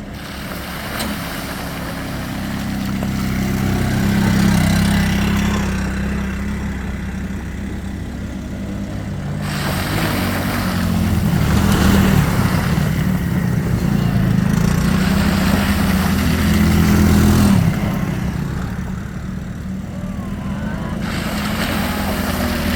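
Off-road vehicle engine running and pulling, growing louder and softer in long swells, with stretches of rushing noise over it.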